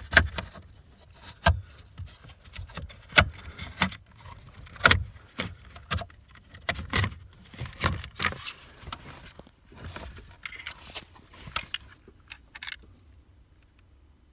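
Clicks, knocks and rattles of hands working a car's lights control module and its fittings loose, in an irregular run of sharp strokes that stops near the end.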